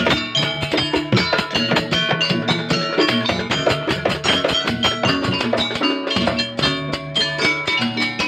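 Live instrumental music: quick, busy percussion strikes under melodic and plucked-string lines, playing without a break.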